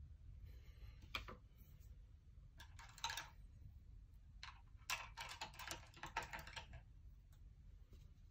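Scattered light clicks and taps in small clusters, the densest run from about five to seven seconds in, over a low steady hum.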